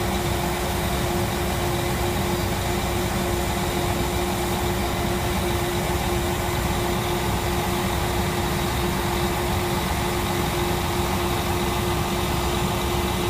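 Farm machinery engine running steadily, a constant drone with a steady whine over it.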